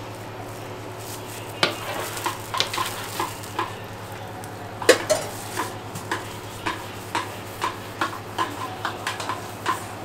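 Filling of shredded vegetables being stirred and tossed in a small stainless-steel pot, the utensil clicking against the metal about two or three times a second, with one louder knock about five seconds in.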